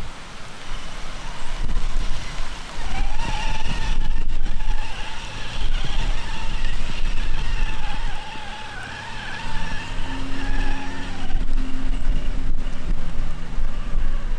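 Electric RC crawler truck with a brushless motor driving through grass and mud: a high motor-and-gear whine that wavers with the throttle and dies away about eleven seconds in, over a low rumble, with a lower hum in the second half.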